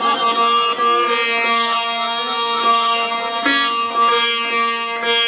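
Instrumental interlude of South Asian folk music: a plucked long-necked string instrument plays a melody over steady held notes, with no singing.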